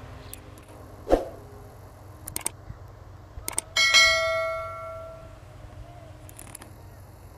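Subscribe-button animation sound effect: a thump about a second in, a few sharp mouse clicks, then a bright bell ding that rings out and fades over about a second and a half. A faint steady low rumble runs underneath.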